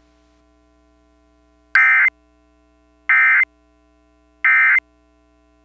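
Emergency Alert System end-of-message data bursts: three short, identical digital squawks about 1.3 s apart, marking the end of the flash flood warning. Beneath them runs a faint steady hum.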